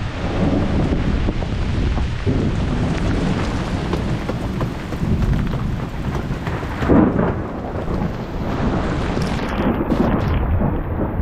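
Heavy rain of a thunderstorm with a deep rumble of thunder throughout and a louder surge about seven seconds in.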